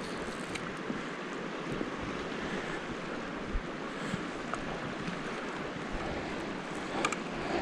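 Steady rush of a creek running high after heavy rain, with a few small knocks about three and a half and seven seconds in.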